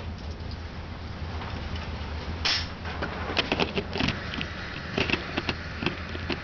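A gunshot on an indoor range about two and a half seconds in, followed by a string of sharp clicks and knocks from handling, over a steady low hum.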